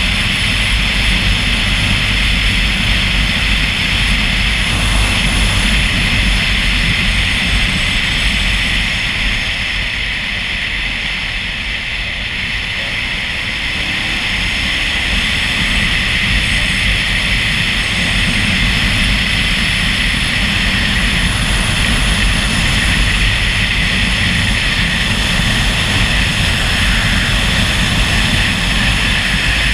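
Steady road noise from a vehicle travelling at speed: a low engine drone with wind rushing over the microphone. It eases a little about ten seconds in and builds back up a few seconds later.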